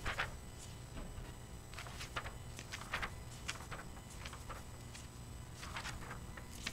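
Soft, scattered rustling of paper and Bible pages being turned, several brief rustles a second over a low steady hum.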